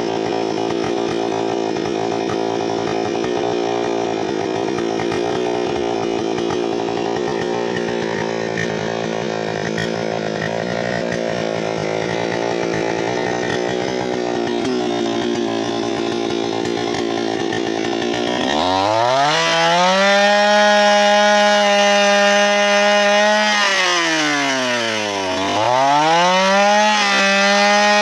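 Petrol chainsaw cutting wood, its engine running steadily under load. About two-thirds of the way in, the pitch climbs sharply as the saw revs freely at a high, steady whine. Near the end the throttle drops briefly and then revs up again.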